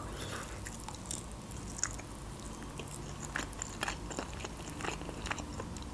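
Close-miked chewing of a piece of chicken, quiet, with a few faint mouth clicks scattered through.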